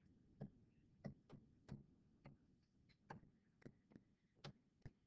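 Faint, irregular clicks of a stylus tip tapping on a tablet screen during handwriting, about ten of them.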